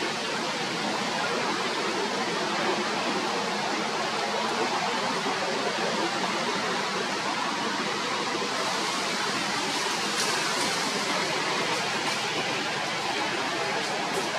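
Steady, even rushing hiss with no distinct events, with a few faint high crackles about ten seconds in and near the end.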